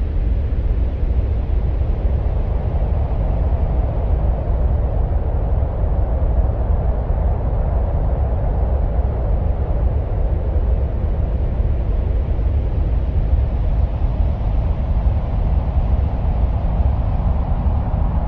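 Steady, deep, wind-like rumble presented as the sound of Mars, even throughout with no separate events.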